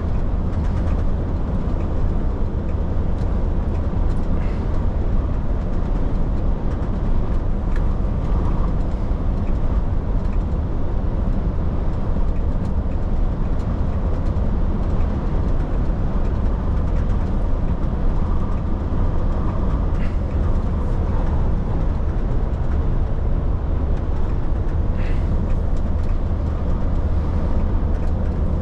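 Truck engine and road noise while driving: a steady low rumble, with a few faint clicks or rattles now and then.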